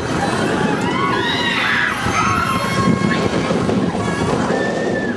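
Steady rushing wind noise on the microphone of a chair-swing ride in full swing. Shrill voices of riders call out with rising and falling pitch about a second in.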